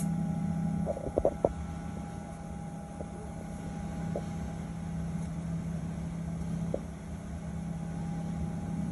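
Cabin noise of a Boeing 737-900 taxiing: a steady low hum from the engines at idle and the cabin air, with a quick cluster of sharp knocks about a second in and a few faint ticks later.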